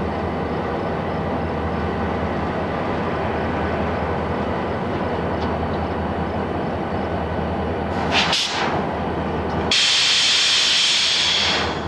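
CP Rail diesel locomotives running with a steady low engine drone. About eight seconds in there is a short hiss of air, then near ten seconds a loud hiss of released compressed air that lasts about two seconds and cuts off.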